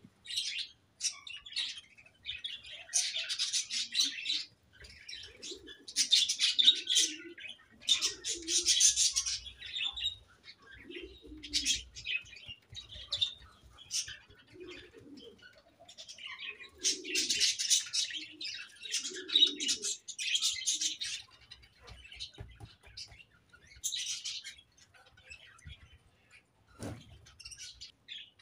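A flock of budgerigars chirping and chattering in bursts of a few seconds each, with short pauses between.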